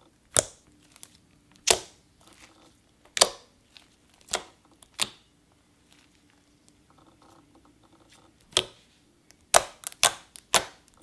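Cookies-and-cream slime being stretched, folded and pressed by hand, making sharp clicking pops as air pockets in it burst. About five are spread over the first half, then a quick run of about six comes near the end.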